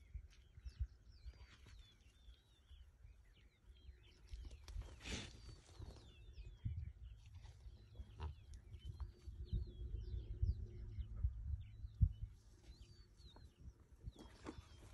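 Many small birds chirping in short repeated calls, over a low rumble of wind on the microphone. A brief rush of noise comes about five seconds in.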